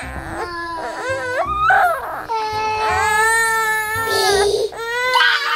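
A toddler's high voice singing, with long drawn-out notes, over children's music with a low pulsing beat.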